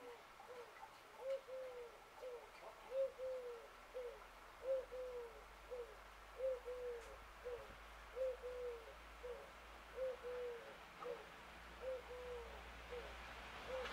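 A dove cooing, a low phrase of a long note followed by a short one, repeated evenly about every second and a half to two seconds.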